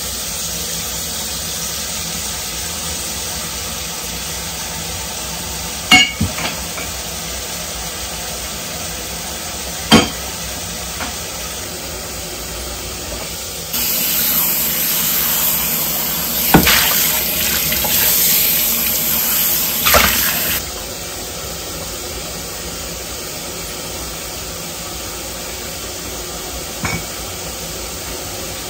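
Kitchen tap running into the sink while dishes are washed by hand, with sharp clinks of dishes knocking together several times. The water rushes louder for several seconds in the middle.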